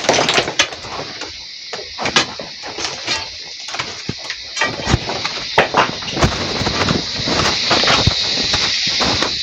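Irregular knocks and clatters, with a steady high hiss that grows louder in the second half.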